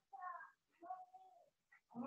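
A cat meowing faintly: two short, pitched calls, one near the start and one around the middle.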